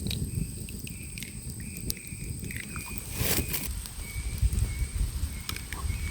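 Outdoor ambience: a low rumble with scattered sharp crackles and clicks and short, faint high chirps, and a louder rustle about three seconds in.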